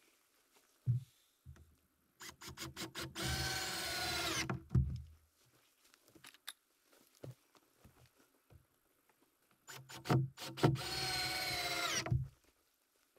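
Cordless drill driving screws into lumber in two runs of about two seconds each. Each run opens with a few quick trigger blips and ends with the motor's pitch dropping as it slows.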